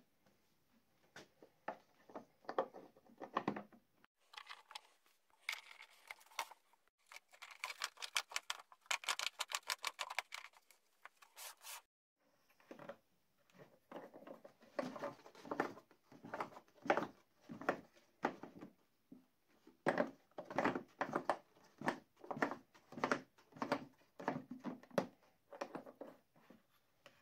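The hand-turned mechanism that moves the incline frame of a homemade plywood table-saw box is being worked: irregular wooden rubbing, scraping and knocking, with several seconds of fast, even clicking in the middle.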